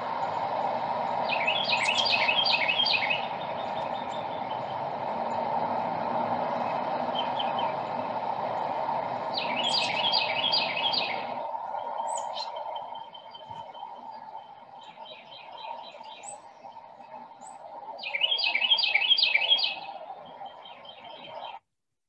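Carolina wren singing its loud, rolling 'germany, germany, germany' song, three bouts of quickly repeated phrases about eight seconds apart. Between the bouts, a Carolina chickadee chirps and a tufted titmouse gives a little 'peter, peter', over a steady low rush that drops off about halfway through.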